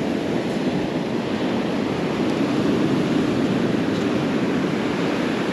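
Steady rush of surf washing onto the beach, rising and falling slightly.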